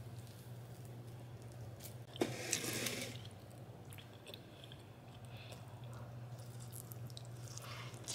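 A person eating a fresh orange: wet squishing and chewing, loudest for about a second, two seconds in, over a steady low hum.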